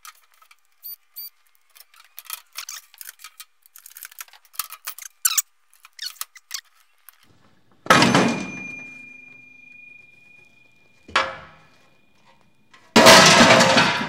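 Small metallic clicks and rattles as an IBM Selectric III typewriter's mechanism is worked loose from its housing. About eight seconds in comes a loud clunk with a metal part left ringing, then a knock, and near the end a heavy clatter as the mechanism is set down on a steel workbench.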